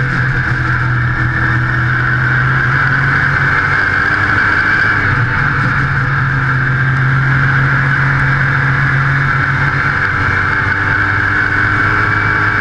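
Modified stock car's engine running hard at racing speed, heard from a camera mounted on the car. The sound is loud and steady, with its pitch rising and falling slightly through the turns.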